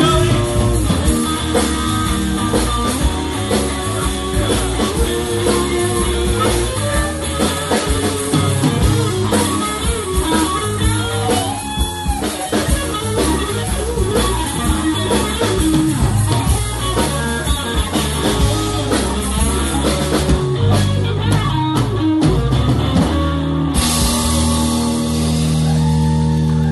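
Live blues-rock band playing an instrumental stretch of a shuffle: electric guitar lead over rhythm guitar, electric bass and drum kit. Near the end the music settles into one long held chord with a bright wash over it.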